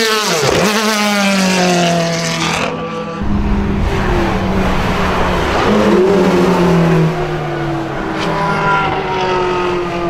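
Ferrari sports cars passing at speed on a race track, each engine note dropping in pitch as the car goes by. There is an abrupt cut to a second car about three seconds in.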